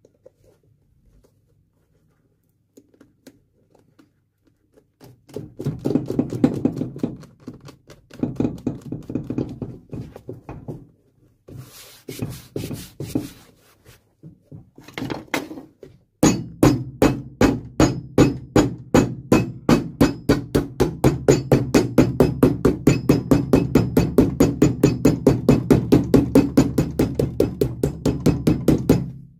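Cobbler's hammer beating a freshly glued rubber midsole onto a shoe held on a last jack, bonding it down. Near silence at first, then short runs of blows, then a long steady run of rapid, evenly spaced blows from about halfway to near the end.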